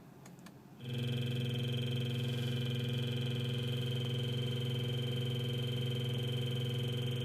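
Replacement BMW car radio putting a steady electronic buzz through the speakers, made of several unchanging tones, cutting in suddenly about a second in. It is the fault noise the radio gets stuck in on AM and FM instead of playing stations.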